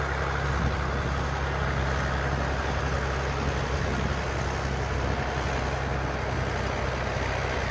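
A truck engine running steadily under load, a constant low drone with no sharp knocks or pauses.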